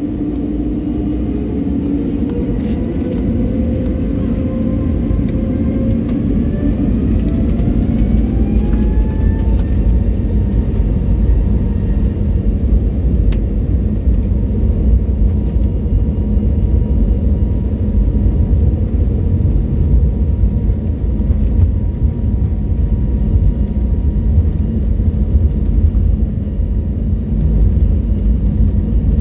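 Airbus A320neo turbofan engines spooling up to takeoff thrust, heard from inside the cabin. A whine rises in pitch a few seconds in and settles into a steady high hum over a deep rumble that grows as the airliner accelerates down the runway.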